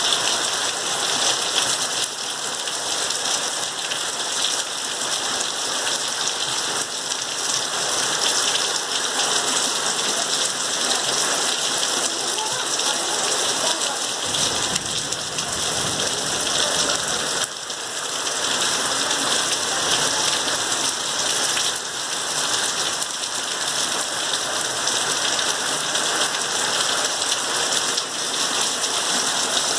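Heavy rain falling and pattering steadily. A brief low rumble comes about halfway through.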